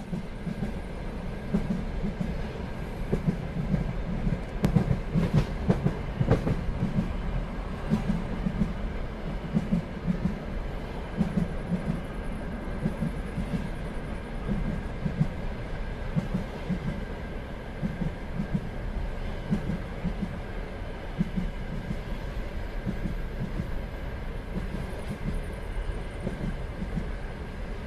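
A train running on the rails: a steady rumble with a repeated clatter of the wheels, and a few sharper knocks a few seconds in.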